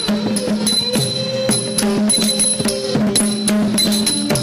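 Indian classical dance music with no singing: a drum playing a quick, uneven pattern of strokes over a held melodic line.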